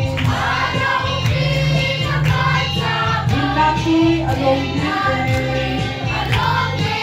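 A group of voices singing a song together over a low accompaniment with a regular beat.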